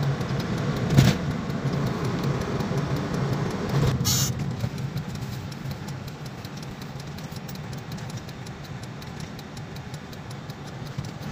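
Car cabin noise while driving: a steady low engine and road rumble, with one sharp knock about a second in and a brief hiss around four seconds.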